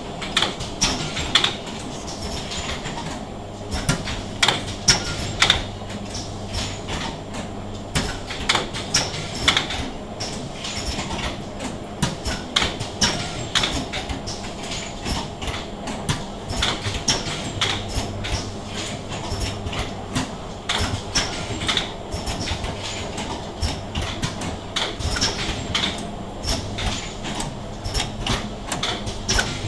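Switch endurance test bench with three fixtures mechanically flipping wall switches over and over: a stream of sharp clicks and clacks at an uneven pace, several a second, over a low electrical hum that comes and goes.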